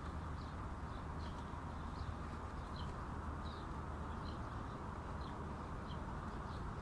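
A small bird chirping over and over, short high chirps a little more than once a second, over a steady background hiss and low hum.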